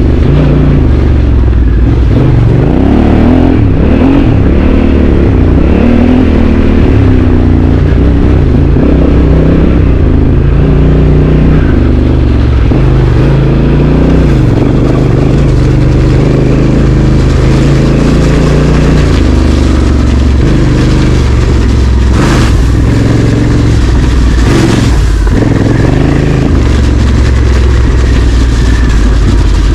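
Honda Africa Twin CRF1100's parallel-twin engine running loud as the motorcycle is ridden off-road, its pitch rising and falling with the throttle. There are two short rushes of noise about three-quarters of the way through.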